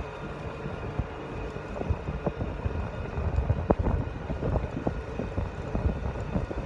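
Golf cart driving across an asphalt parking lot, heard from on board: a steady low rumble with wind buffeting the microphone and scattered knocks and rattles from the cart.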